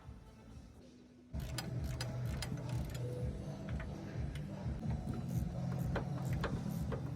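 A steady low machine hum that starts suddenly about a second in, with irregular clicks and taps over it.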